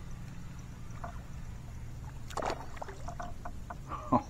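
Water splashing as a hooked bream is reeled up to a kayak, with a louder, sharp splash just after four seconds in as the fish is lifted from the water. A low steady hum runs underneath and fades out about halfway through.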